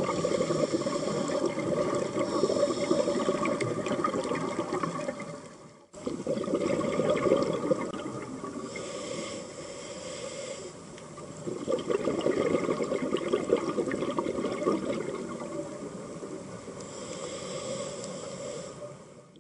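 Scuba regulator breathing heard underwater: long bursts of bubbling exhalation alternating with the hiss of inhalation, repeating over several breaths.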